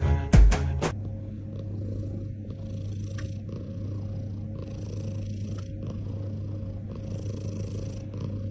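Domestic cat purring steadily, close up, starting about a second in. A soft breathy hiss rises and falls in a regular cycle with each breath.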